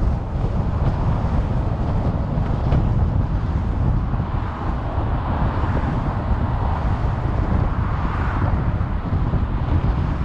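Steady road noise from a car driving along a paved highway: a low tyre-and-engine rumble with some wind noise over the microphone.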